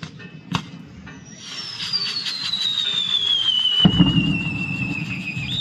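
Castillo fireworks burning: a few sharp pops, then a whistling firework gives a long high whistle that falls slowly in pitch over about four seconds, over steady crackling and fizzing. A deeper rushing sound joins about four seconds in.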